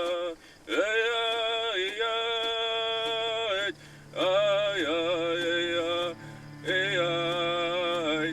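A man singing three long, chant-like phrases of held notes, with short breaks between them. A low steady drone joins about two and a half seconds in.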